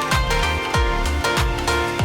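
Background music with a steady electronic beat: a kick drum about every 0.6 seconds under sustained synth notes.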